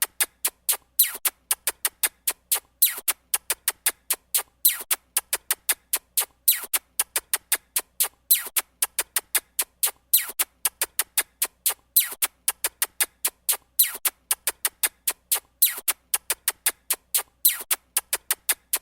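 A looped stock sound effect of sharp clicks in a steady rhythm, with a louder accent about every two seconds and several quieter clicks between, much like a drum-machine or beatbox pattern.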